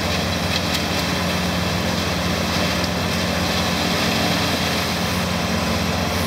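A heavy machine's engine running steadily at a constant speed, with an even low hum.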